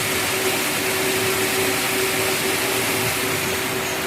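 2018 Nissan X-Trail engine idling with a steady whirring hiss and a constant hum, run so the fresh coolant circulates and air bleeds out of the cooling system.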